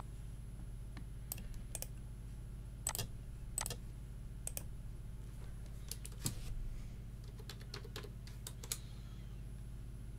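Keystrokes on a computer keyboard, scattered and irregular, over a low steady hum, as a command and a password are typed.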